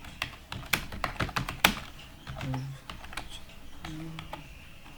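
Typing on a computer keyboard: keystrokes at an uneven pace, with one sharper, louder stroke just under two seconds in.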